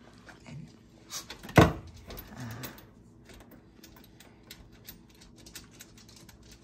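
Scattered clicks and knocks of work under a kitchen sink while the old garbage disposal is being taken out, with one loud sharp knock about one and a half seconds in.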